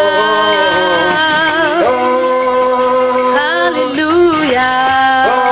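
Worship song: a voice holding long sung notes over instrumental accompaniment, the notes changing every second or two.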